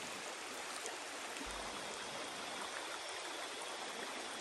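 Shallow stream water running over gravel and stones, a steady rushing, with a faint steady high-pitched tone joining after about a second and a half.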